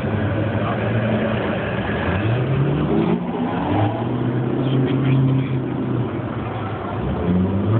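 Sports car engine revving as the car turns in tight circles. Its pitch climbs about two seconds in, holds high through the middle, drops, then climbs again near the end.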